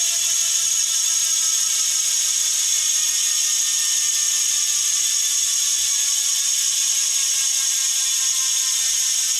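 Rear freehub of a Bontrager Aeolus Pro 3V wheel with DT Swiss ratchet internals buzzing as the wheel freewheels: a steady, high-pitched ratcheting buzz whose pitch sinks slowly as the wheel spins down.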